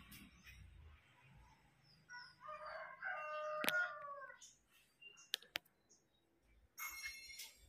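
A rooster crowing once, a drawn-out call of about two seconds that falls in pitch at the end. A few sharp clicks follow, and a short high-pitched sound comes near the end.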